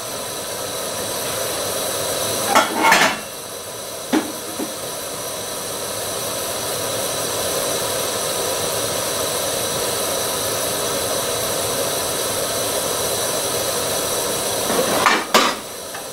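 Canister gas stove burner hissing steadily under an aluminium mess kit pot of water being brought to the boil. A few short metallic clinks and knocks come about 3 s in, once more about a second later, and again near the end.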